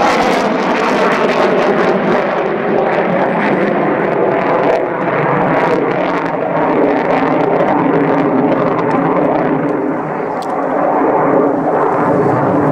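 F-15 Eagle fighter's jet engines at high power as it climbs steeply, a loud steady rush of jet noise with a falling tone at the start. The hissing top end dulls in the second half as the jet draws away.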